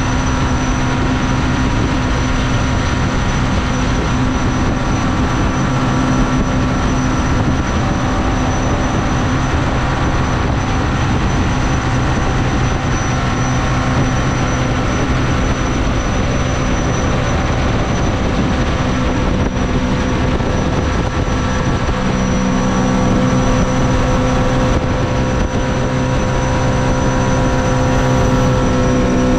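Mini jet boat's engine and jet drive running steadily at speed, a loud continuous drone over a rushing hiss.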